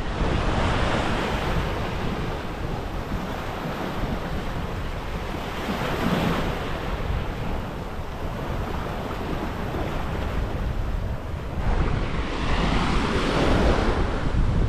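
Surf washing onto the beach, swelling and easing a few times, with wind buffeting the microphone.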